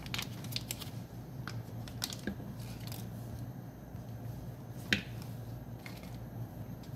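A few soft clicks and taps as slabs of butter are set down into a small metal frying pan, the sharpest about five seconds in, over a low steady hum.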